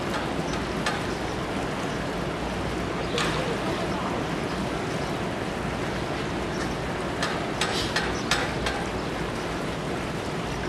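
Steady rushing outdoor ambience of ocean surf and wind, with a few brief sharp sounds about three seconds in and a cluster of them between about seven and eight and a half seconds.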